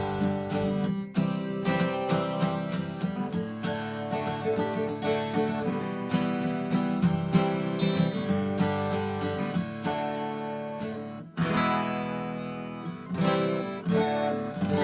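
All-rosewood Giannini acoustic guitar, freshly rebuilt and in tune, strummed in chords with a warm, darker sound. There is a short break about eleven seconds in before the strumming resumes.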